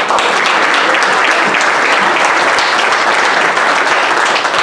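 A church congregation applauding, loud and steady.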